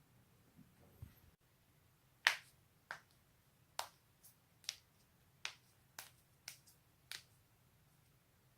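Neck and back joints cracking: a quick run of about ten sharp pops a half-second or so apart, starting about two seconds in, the first one the loudest.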